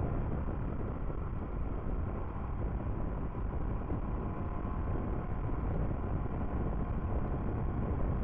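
Motorcycle riding at speed, heard from a camera mounted low on the front fork: steady wind rush over the microphone with engine and road noise beneath it.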